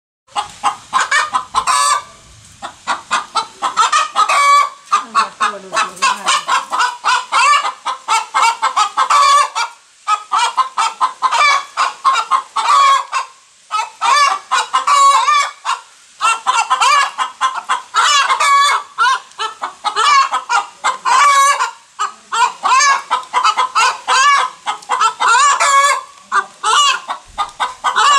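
A hen's egg song after laying: fast runs of loud clucks, each phrase ending in a longer, drawn-out call, repeated again and again with only short pauses between.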